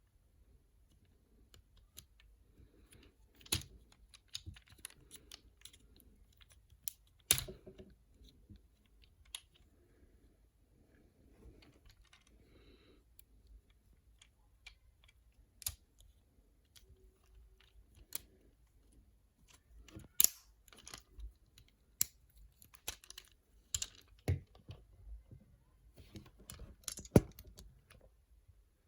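Plastic parts of a Transformers action figure clicking and snapping irregularly as it is handled and moved, with a few sharper snaps standing out among lighter clicks.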